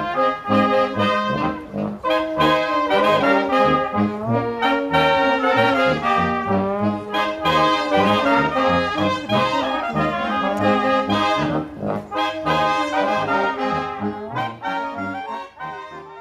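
A live band playing lively music with brass to the fore. The music fades down near the end.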